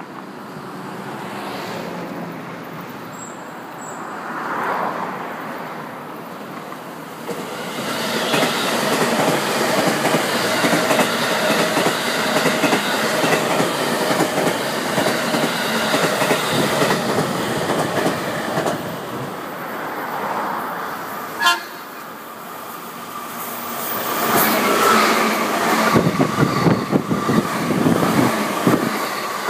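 Electric trains passing at speed: a long train runs by with wheel clatter from about 8 to 19 seconds, a short sharp sound comes near 21 seconds, and a second train goes by from about 24 seconds. The long train is the 12-car JR Kyushu 783 series limited express.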